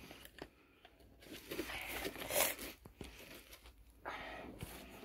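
Faint rustling and crinkling as new shoes and their paper tag and packaging are handled, with a few light ticks.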